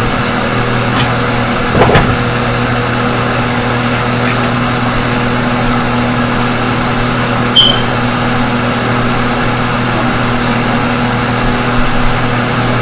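Stove range-hood fan running with a steady, even hum. A single knock comes about two seconds in, and a short high chirp midway.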